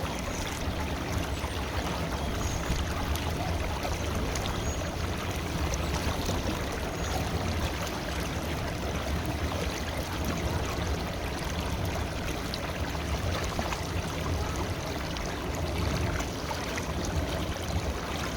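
River water flowing steadily: a continuous rushing and trickling at an even level.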